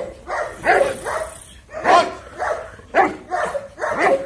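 Muzzled golden retriever barking repeatedly at a man lying on the ground, about two barks a second with a short pause after the first second: guard barking during protection work.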